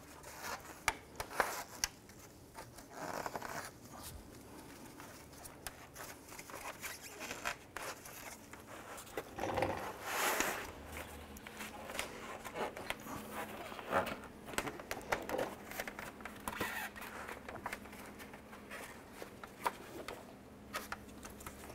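Plastic and chrome grille trim being handled and pressed onto a plastic grille by gloved hands: scattered light clicks as tabs are pushed in, with rubbing and scraping of the plastic parts, one longer scrape about ten seconds in.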